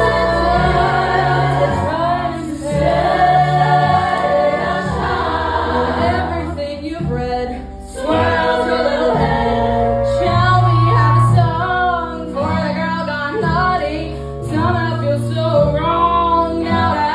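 Song with layered, choir-like singing over sustained low bass notes, with a short dip in level about 8 seconds in.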